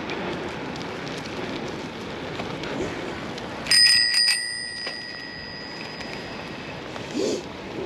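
A bicycle bell rung with a quick flurry of strikes about three and a half seconds in, its bright ring fading over a couple of seconds. Underneath is a steady rush of riding noise.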